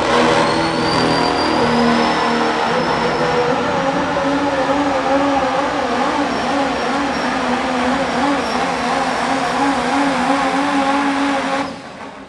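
Diesel Super Stock 4WD pulling truck's engine running at full throttle under the load of a pull, loud and steady, with a high whistle rising over the first few seconds. The engine sound cuts off sharply near the end as the run finishes.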